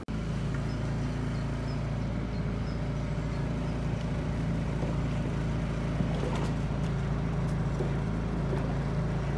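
Outboard motor running at a steady speed.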